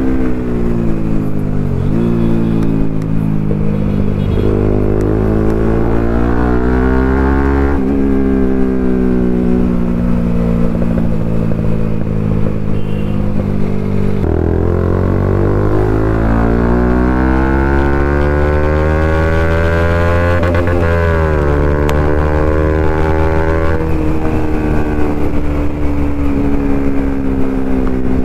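Bajaj Pulsar NS200's single-cylinder engine through an aftermarket Akrapovic slip-on exhaust while riding. The revs climb with a quick dip at a gear change, fall away slowly as the throttle closes about eight seconds in, then climb hard again. They drop back a little past the twenty-second mark and run steady at cruise to the end.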